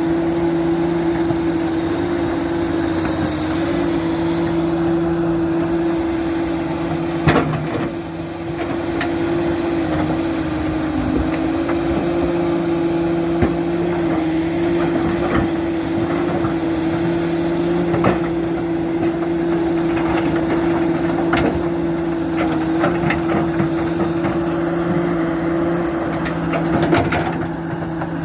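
Komatsu PC400 excavator's diesel engine running at a steady, unchanging pitch while the machine works, with a few sharp knocks over it, the loudest about seven seconds in.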